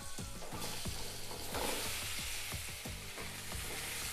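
Boiled amla (Indian gooseberry) segments frying in hot mustard oil with tempered spices in a kadhai, a steady sizzle that grows louder and fuller about a second and a half in.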